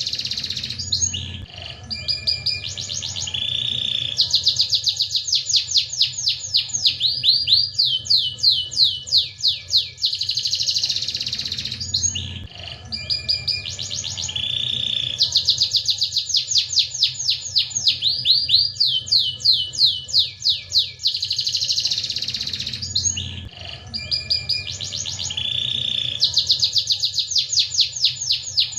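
Domestic canary singing a long, fast song of rapid rolling trills and buzzy held notes. The same sequence of phrases repeats about every eleven seconds.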